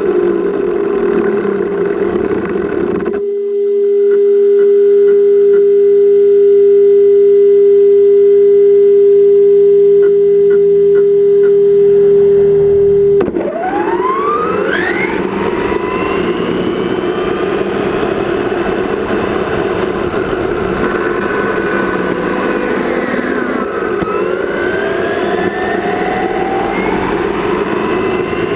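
Traxxas Slash 4x4 RC truck's electric motor and drivetrain whining, picked up by its onboard camera together with road and wind noise. A steady high whine holds for about ten seconds and cuts off suddenly. Then the pitch rises and falls several times as the truck speeds up and slows.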